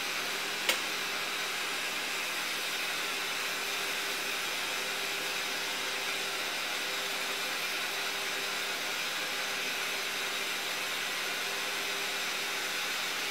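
Gas torch flame hissing steadily as it preheats the lip of a blown glass vessel, with one sharp click about a second in.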